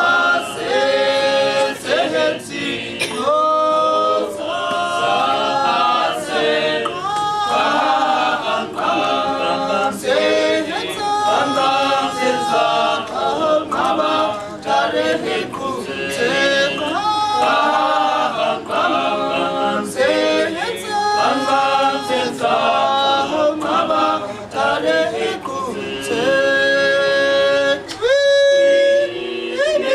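Men's choir singing a cappella in harmony, in phrases of held notes with short breaks between them.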